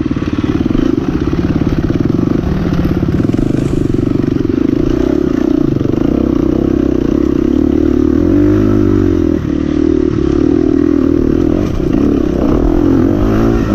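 Dirt bike engine running hard on a steep, muddy trail climb, its note swinging up and down a couple of times in the second half as the throttle is worked.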